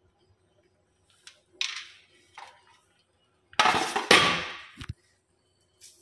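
Steel kitchen utensils and pots being handled: a few short clinks and knocks, then a louder clatter lasting just over a second past the middle, and one more knock near the end.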